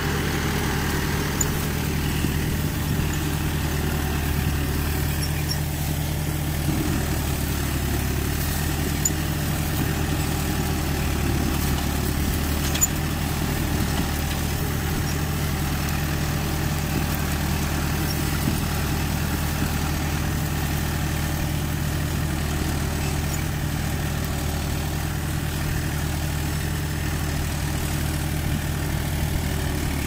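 Tractor engine running steadily under load while pulling a mounted disc plough through the soil, with an even low drone.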